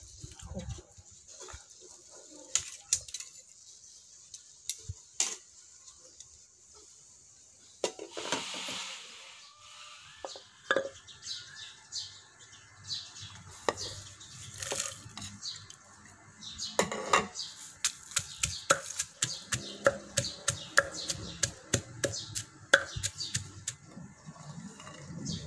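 Scattered clinks and taps of cooking utensils and dishes, coming thicker in the second half, with birds chirping now and then.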